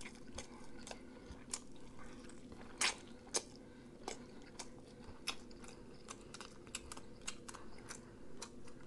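A person chewing food, heard as faint, irregular clicks and crunches, with two louder ones about three seconds in.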